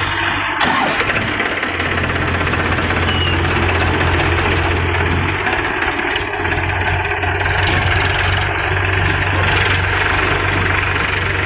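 Diesel farm tractor engines idling, a steady low hum.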